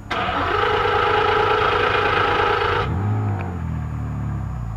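Aston Martin Vulcan's naturally aspirated V12 revved hard while the car stands still. The revs are held high for nearly three seconds, then drop away and settle back toward a low idle near the end.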